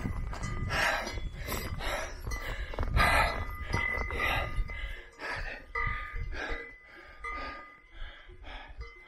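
A hiker breathing hard in repeated gasps while walking a rocky mountain path, with a low rumble on the microphone. A few clear ringing tones sound in the background from about halfway through.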